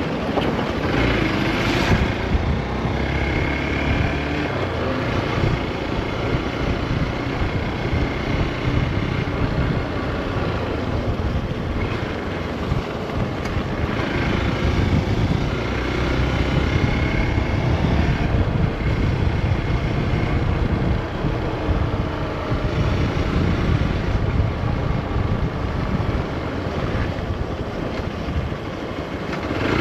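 Hero XPulse 200 4V's single-cylinder engine running while the bike is ridden, its note rising and falling a few times with the throttle. Heavy wind buffets the microphone.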